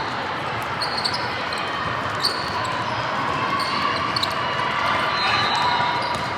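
Basketball game sounds in a gym: sneakers squeaking in short chirps, a few sharp ball thuds, and a steady echoing wash of spectators' voices.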